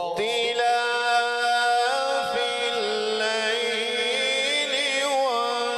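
A man's Quran recitation (tilawat), chanted through a microphone as one long held phrase with ornamented turns, the pitch stepping to new notes about two seconds in and again near the end.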